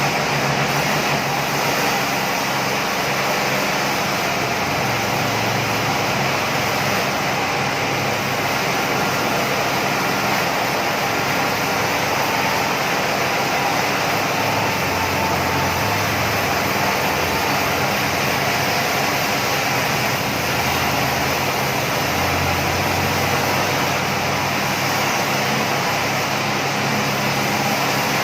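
Sawmill machinery running steadily, a continuous mechanical noise with a low hum that shifts slightly in pitch a few times.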